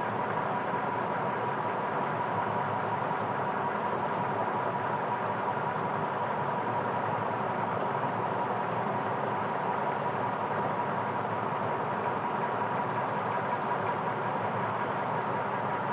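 Electric fan running steadily: an even whooshing hum with a faint steady whine held through it.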